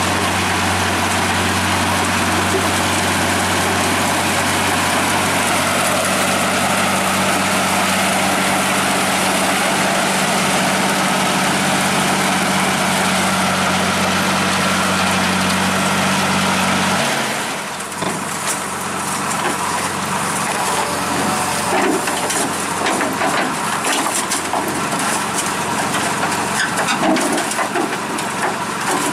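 New Holland 8060 combine harvester's diesel engine running steadily as the machine drives on its tracks. About 17 seconds in this gives way to a loud crunching and crackling of the rubber-and-steel tracks grinding over gravel and up the trailer's loading ramps, with many sharp clicks.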